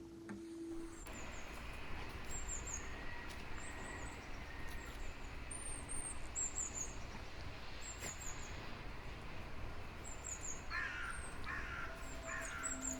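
Birds in a park: short, thin, high chirps repeat throughout over a steady low outdoor rush, and a crow caws three times, about a second apart, near the end.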